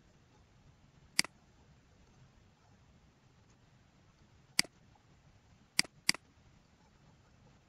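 Computer mouse clicks: four short, sharp clicks. The first comes about a second in, the next about four and a half seconds in, then two in quick succession around six seconds.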